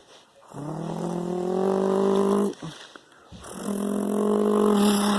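A person's voice making two long, drawn-out snoring sounds, each lasting about two seconds with a short break between them.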